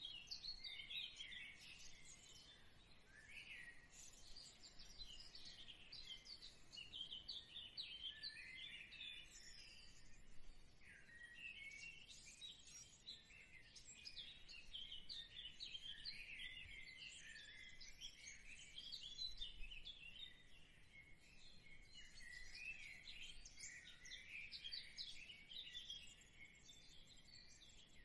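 Hot oil sizzling around vermicelli biscuits as they deep-fry in a pan: a quiet, dense, irregular crackle of many short high pops.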